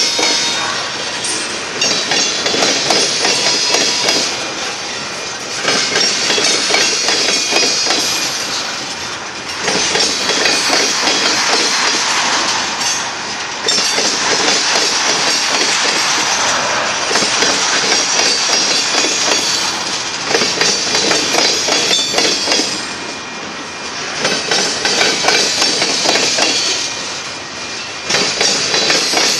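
Freight train cars (covered hoppers and tank cars) rolling past at close range, their wheels clattering over the rail joints. The loudness swells and dips every few seconds as each car goes by.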